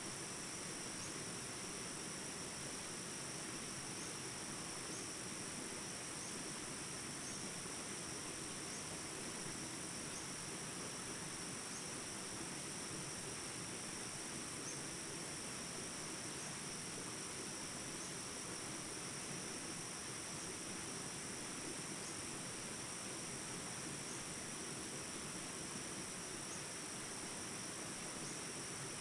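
Jungle ambience track: a steady, high chorus of insects trilling over the even hiss of small rapids, with a faint chirp repeating about every second and a half.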